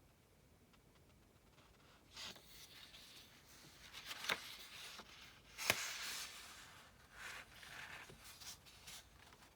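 Paper and a book being handled at a desk: soft rustling and rubbing for several seconds, with two sharp clicks in the middle.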